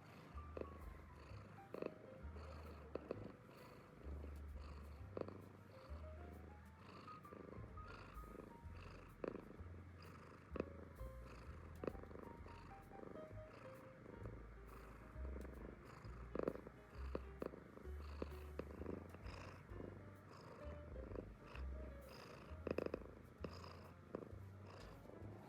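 American Shorthair cat purring, a low rumble that swells and drops with each breath, under soft background music.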